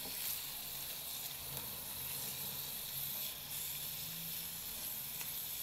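Beetroot strips and onion sizzling steadily as they fry in oil alone, with no water added, in a stainless steel pot.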